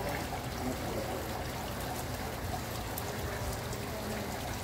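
Steady trickling and splashing of water from an indoor water-wall feature.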